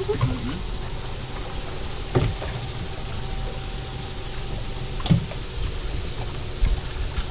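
Steady low rumble with a faint hum, broken by two short sharp knocks about two and five seconds in.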